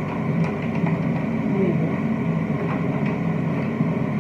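A steady low hum, like a running motor or fan, with a few faint light clicks over it.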